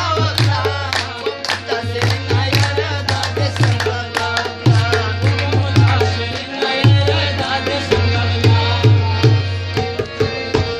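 Harmonium playing a melody over a hand-drum rhythm, the drum's deep bass strokes repeating steadily beneath it.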